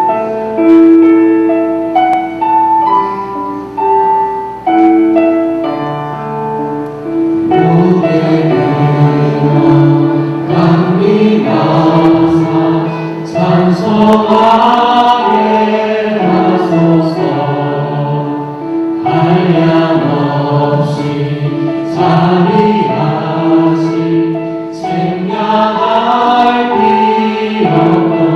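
Church choir singing a sacred song with piano accompaniment. A short piano introduction leads in, and the choir enters about seven seconds in.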